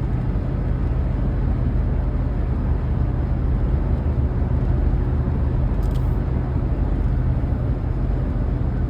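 Steady road and engine noise of a vehicle cruising at highway speed, heard from inside the cabin: a constant low rumble with a steady hum.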